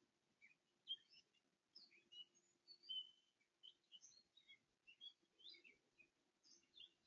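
Faint outdoor songbird chirps: many short, quick calls from several birds, scattered all through, over a faint steady low hum.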